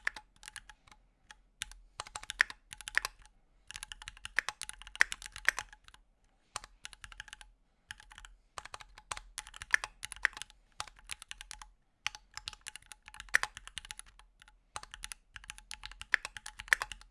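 Typing on a Keychron Q2 aluminium-cased 65% mechanical keyboard: quick runs of keystroke clicks in bursts, broken by short pauses.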